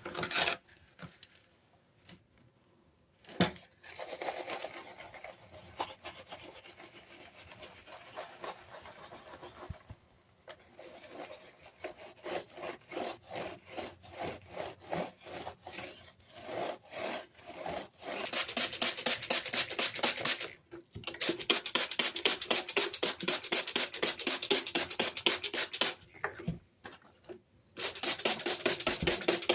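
Rapid back-and-forth scrubbing strokes, several a second, on a Dell keyboard being cleaned. There are a few short pauses, and the strokes grow louder about two-thirds of the way through.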